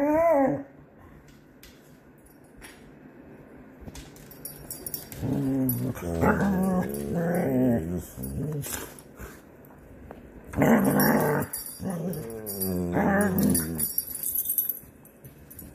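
Dogs play-growling while wrestling: a short high whine right at the start, then two long bouts of wavering growls a few seconds each.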